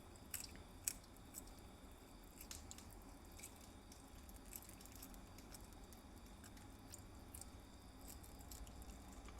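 Near silence broken by faint, scattered crisp clicks of a small pet chewing its food, most of them in the first few seconds.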